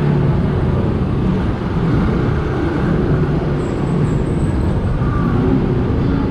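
Motorcycle being ridden in city traffic: the engine runs steadily under a constant rumble of road and traffic noise.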